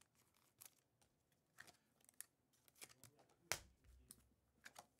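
Faint handling of trading cards and their wrappers on a desk: scattered light clicks, slides and rustles, with a sharper tap about three and a half seconds in.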